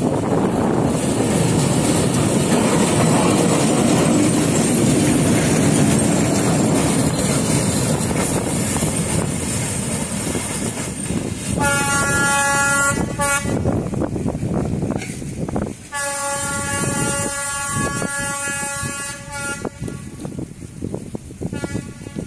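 Two Vietnamese diesel locomotives, a D12E and a D11H, running coupled without cars. There is a loud rumble of engines and wheels on the rails as they pass and draw away. Then the horn sounds: a blast of about two seconds, a longer one of nearly four seconds, and a brief short note near the end.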